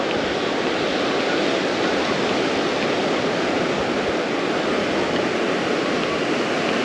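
Steady rush of shallow surf washing over a sandy beach.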